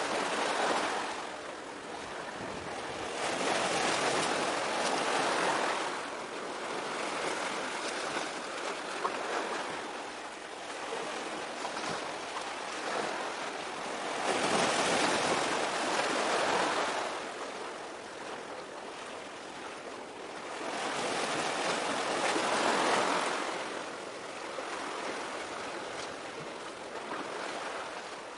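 Sea waves washing on the shore, a rushing surf noise that swells and falls back in slow surges, about four of them.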